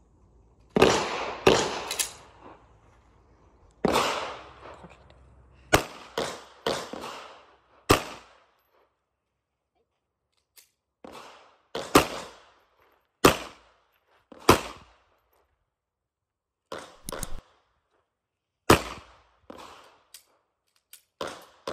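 A handgun fired repeatedly on a pistol range: more than a dozen single shots at an irregular pace, some in quick pairs, each with a short echo.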